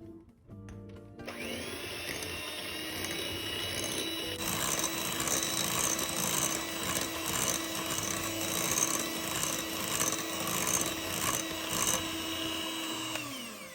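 Electric mixer starting up about a second in and whirring at a steady pitch, beating coconut milk into creamed butter. About four seconds in it gets louder and rattlier as the beaters work the mixture, then it winds down just before the end.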